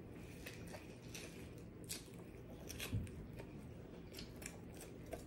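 Faint close-up chewing of a bite of fried fish sandwich, with scattered soft crunchy clicks from the fried coating.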